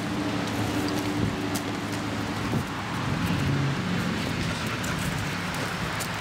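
Steady low vehicle hum, with faint rustling and light clicks as puppies scuffle on the grass.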